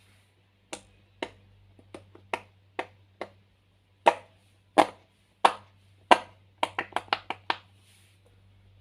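A series of sharp pops: scattered, softer ones at first, then four louder, evenly spaced pops and a quick run of about eight near the end.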